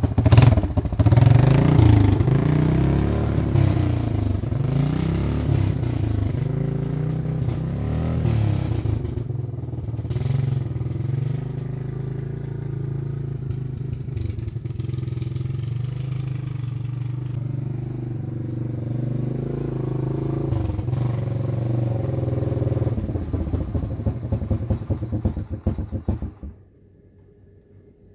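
Honda Fourtrax 300 ATV's engine running as the machine is ridden, its pitch rising and falling with the throttle, then stopping suddenly near the end. The engine is running again after a no-start repair.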